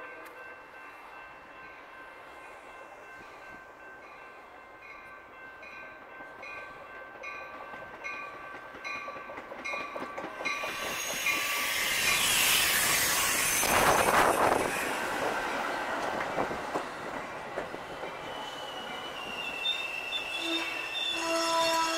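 Metra commuter train arriving at a station platform: steady horn-like tones and a bell ringing about twice a second as it approaches. From about 11 s the bilevel cars pass close by with loud wheel and rail noise, and near the end a steady high squeal sets in as the train brakes to a stop.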